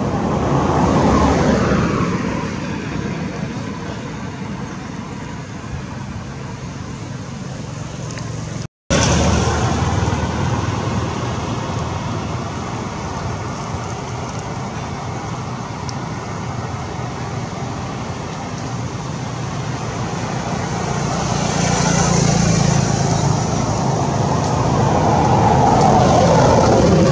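Road traffic going by: a steady background of vehicle noise, with vehicles swelling past about a second in and again near the end. The sound cuts out for a moment about a third of the way through.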